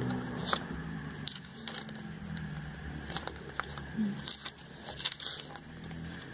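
Glossy paper catalogue pages being flipped and riffled by hand: a string of short crackles and rustles, busiest about three to five seconds in, over a low steady rumble.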